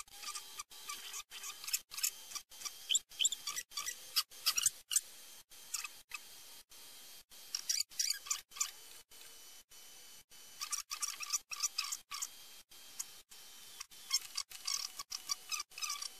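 Small clicks and scratches of precision screwdrivers and gloved hands working on an opened hard drive's head assembly, in short clusters every few seconds. The sound cuts out in brief, regular gaps two or three times a second.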